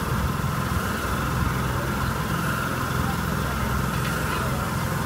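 Steady mechanical hum of a spinning fairground airplane ride running, with voices in the background.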